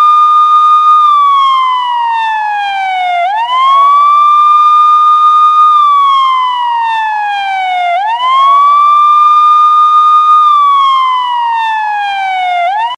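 Loud police siren in wail mode: each cycle sweeps quickly up, holds its high note for about two seconds, then slides slowly back down, repeating roughly every four and a half seconds, about three times.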